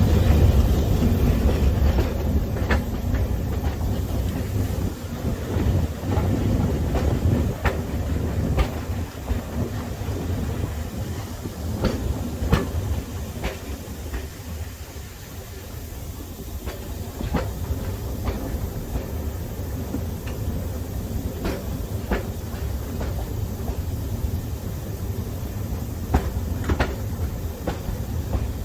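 Railway carriage running along the track, heard from on board: a low rumble with the wheels clicking over rail joints. The rumble eases off about halfway through.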